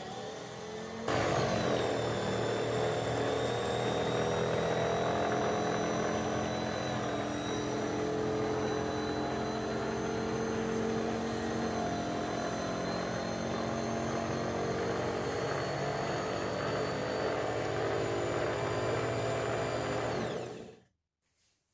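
Homemade belt sander running, its washing machine motor driving the drum through a V-belt and pulleys: a steady motor hum with a whine, starting abruptly about a second in and cutting off shortly before the end.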